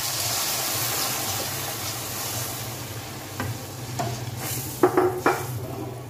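Milk poured into a wok of hot ghee-fried vermicelli, sizzling as it hits the pan, the hiss fading over the first few seconds. A plastic spatula then stirs the milky vermicelli, with a few short scrapes and taps against the pan.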